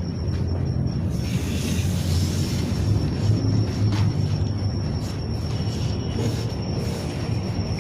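Steady low mechanical rumble with a thin, steady high-pitched whine over it and a few faint clicks.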